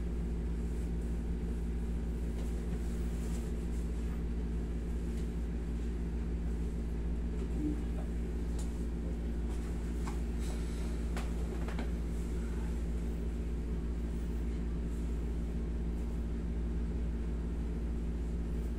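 Steady low hum of a wall-mounted air conditioner running, with a few faint clicks around the middle.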